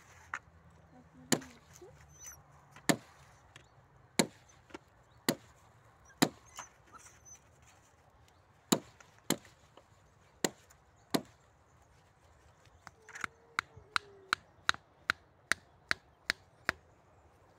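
Wood being chopped with a blade: sharp single strikes about a second apart, then a quicker run of a dozen or so strikes near the end.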